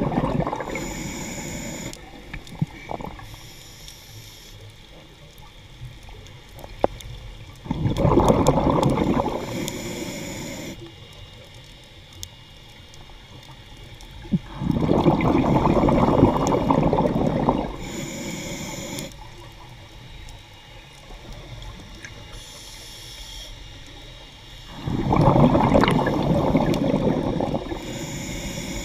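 Scuba diver breathing through a regulator underwater: three loud bursts of exhaled bubbles, each a few seconds long and about eight seconds apart, with quieter regulator hiss between them.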